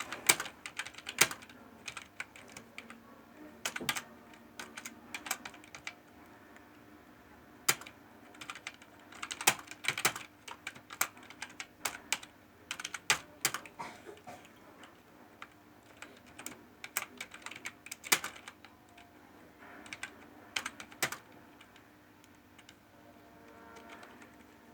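Typing on a laptop keyboard: irregular keystrokes in quick clusters separated by short pauses.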